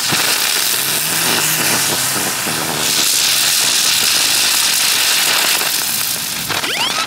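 Ground firework on pavement spraying sparks with a loud, steady hiss and crackle. It grows brighter and harsher about three seconds in, and a few rising whistles sound near the end.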